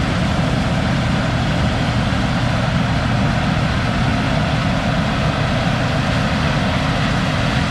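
Farm tractor's diesel engine running steadily under load, with an even hiss of machinery noise above it.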